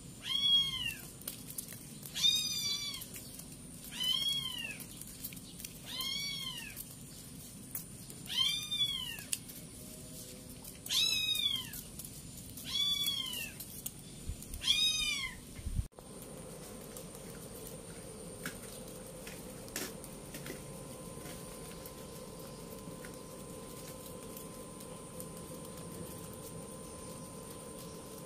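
Kitten meowing over and over, a high, arching call about every two seconds, eight times. The meows stop abruptly about halfway through, leaving only a faint steady hum.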